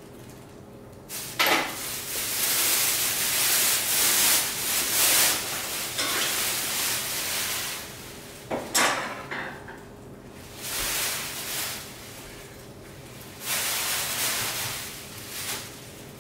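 Plastic packaging crinkling and rustling in several bursts as it is pulled off a stainless steel immersion wort chiller coil. Sharp clicks come about a second and a half in and again just past halfway.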